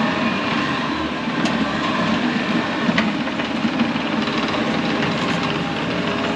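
Bobcat T630 compact track loader running steadily with its diesel engine under work, with a couple of sharp clanks.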